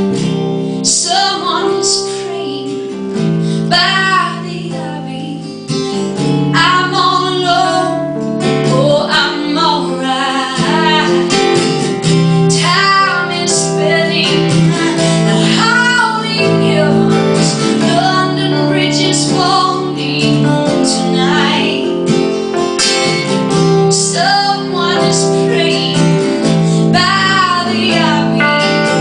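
A woman singing over acoustic guitar, her phrases gliding up and down above steady chords.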